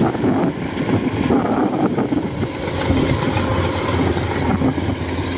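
Kubota combine harvester running steadily while it harvests rice: a continuous diesel engine hum with the machine working under load.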